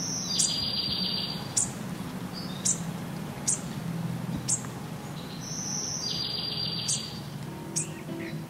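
Nature ambience of small birds giving short, high, falling chirps about once a second. There is a buzzy trill just after the start and another about six seconds in.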